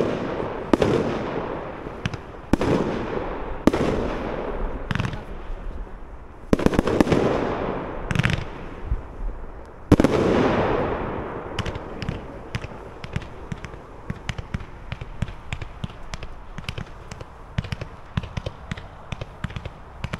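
Fireworks display: aerial shells bursting one after another with sharp bangs, each followed by a fading rush of noise. From about twelve seconds in, a long run of quick crackling pops.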